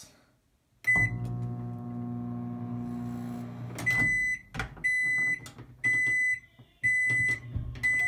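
Emerson MW9338 countertop microwave oven starting a short cycle: a beep, then about three seconds of steady running hum, which stops as the timer runs out. Then five loud beeps, about one a second, signal the end of the cycle, with a click among them.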